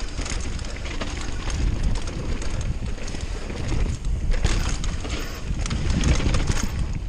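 Downhill mountain bike running fast down a dirt and gravel trail: tyres rumbling over the ground and the bike rattling and knocking over bumps and stones.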